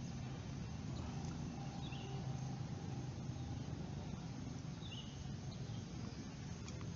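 Steady outdoor background with a low hum, and three short, high bird-like chirps spaced a few seconds apart.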